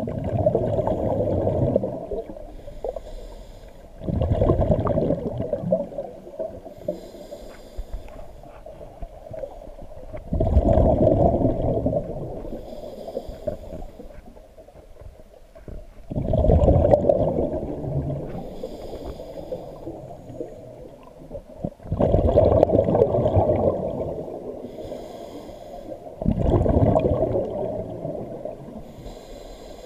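Scuba diver breathing through a regulator: six loud gurgling rushes of exhaled bubbles every five to six seconds, with a faint hiss of inhalation between them.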